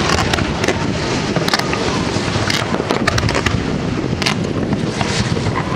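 Fireworks display: aerial shells bursting one after another, many irregular sharp cracks and bangs over a continuous dense noise of the display.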